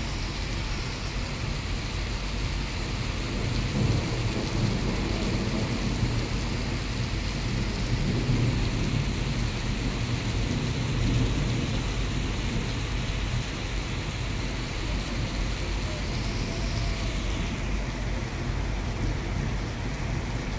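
Heavy rain falling steadily on a wet road, with a constant low rumble underneath.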